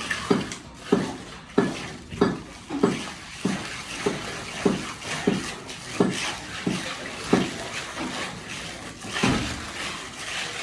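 Steel plastering trowel working wet cement render on a concrete wall: short strokes about every two-thirds of a second, a dozen in a row, then a pause and one more stroke about nine seconds in.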